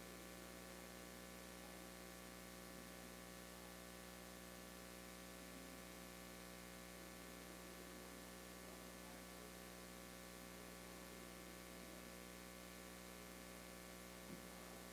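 Near silence: a steady electrical mains hum on the recording, with one faint tick near the end.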